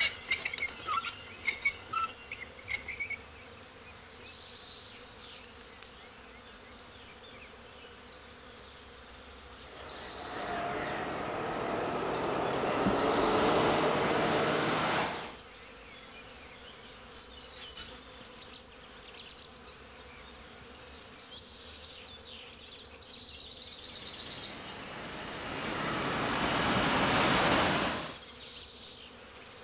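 A car passing twice on a road: two swells of engine and tyre noise, one about a third of the way in and one near the end, each building over a few seconds and then cutting off abruptly. A few short chirps or clicks come at the start, over a faint steady background.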